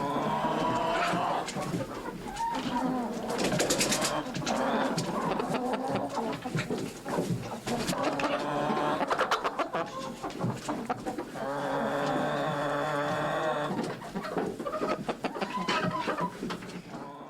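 Chicken clucking in a run of short repeated calls, with a longer drawn-out call about twelve seconds in.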